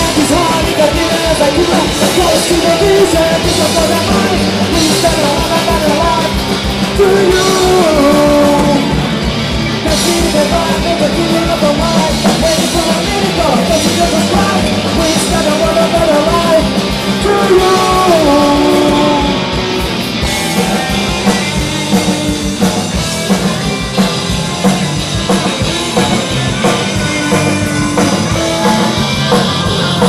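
Live hardcore punk band playing: distorted electric guitars and a driving drum kit under a sung vocal line, continuing without a break.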